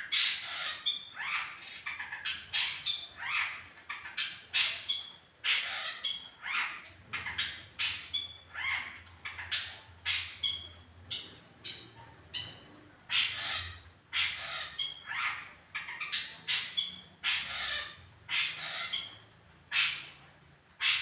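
Long-tailed shrike (cendet) calling in a rapid series of harsh, scratchy notes, about two a second, mixed with short higher whistled notes.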